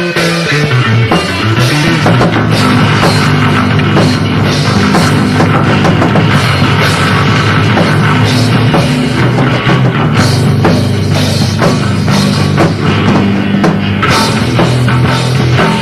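Live band jamming hard-driving rock: drum kit with cymbals and a distorted guitar over a bass line, recorded raw and loud with no sound check.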